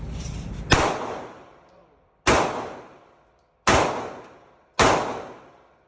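Four gunshots, a second or so apart, each sharp crack followed by a fading echo.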